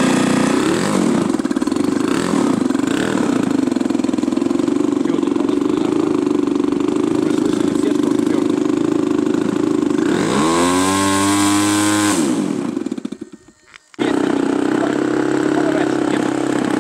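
The engine of an RC Yak 54 model aerobatic airplane runs steadily at a high pitch, just started with a handheld electric starter on the spinner. About ten seconds in, its pitch sweeps down and back up, then the sound drops away for a moment and comes back abruptly.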